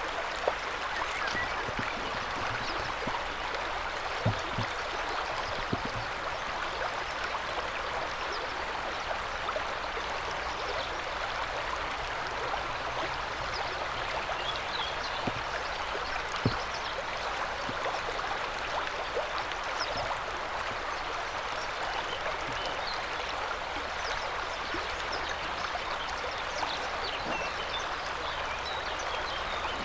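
River water running steadily, an even rushing murmur, with a few short sharp clicks, the loudest about half a second in and about sixteen seconds in.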